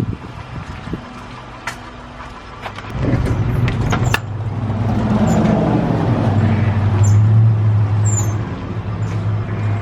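A car running, heard from inside, a steady low engine and road hum that grows louder about three seconds in.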